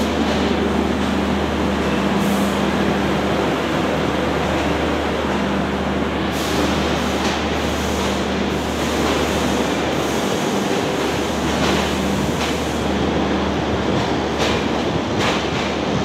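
An Indian Railways Rajdhani Express rolls past a platform, first its WAP-7 electric locomotive and then its coaches. It makes a steady rumble with a low hum, and wheels clack on the rails now and then.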